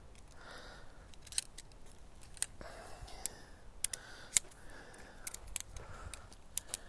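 Quiet, scattered sharp clicks and taps of tent poles being handled and the pole end being seated into the tent's corner hole.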